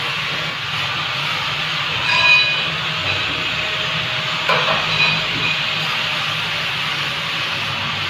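A steady hiss with a low hum, and short metallic clinks about two seconds in and again around four and a half to five seconds in, as a metal electrical panel box is screwed onto a wall.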